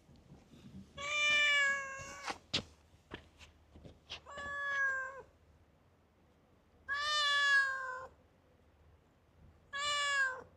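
Calico cat meowing: four drawn-out meows about a second each, spaced a couple of seconds apart.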